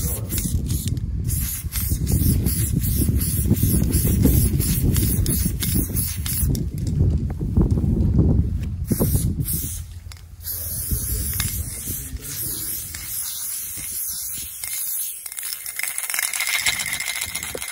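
Aerosol spray paint can hissing, with a heavy low rumble under it through the first half.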